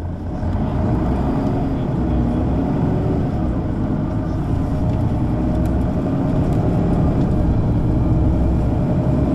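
Mercedes-Benz O 530 G Citaro G articulated bus engine running under load, getting louder about half a second in, its pitch rising and falling as the bus accelerates through its ZF gearbox.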